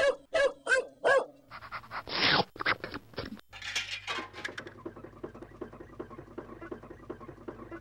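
Dog barking four times in quick succession, then a couple of seconds of breathy panting, fading into a faint, fast, even ticking.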